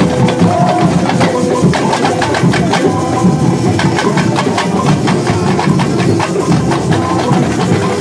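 Samba batucada percussion ensemble playing together: deep bass drums under many small hand drums and other hand percussion, beating a fast, steady rhythm.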